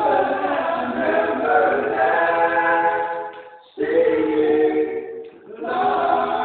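Samoan male vocal group singing a cappella in close harmony, several voices holding long chords. The singing comes in three phrases with short breaks about three and a half and five and a half seconds in.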